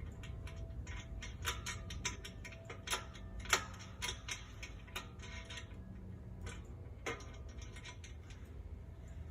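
Irregular metallic clicks and taps of hex bolts being fitted up through the pedal and the mower's foot pan, the loudest a little over three seconds in.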